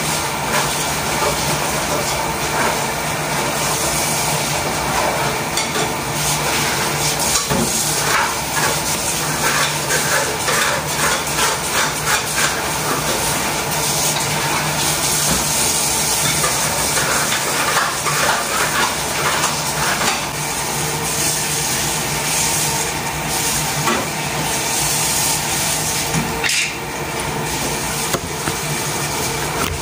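Greens sizzling as they are sautéed in a pan, stirred with a utensil that scrapes and clinks against the pan, most busily through the middle. A steady low hum runs underneath.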